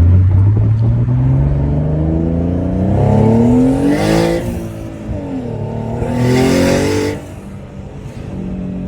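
Twin-turbocharged Infiniti G35 V6 accelerating hard, revs climbing steadily through a gear. About four seconds in there is a shift with a brief rush of air, then a second climb. Near seven seconds there is another rush of air as it backs off to a lower, steadier run.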